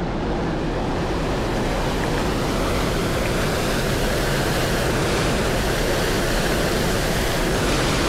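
Waterfall pouring into churning whitewater: a steady, even rushing of water.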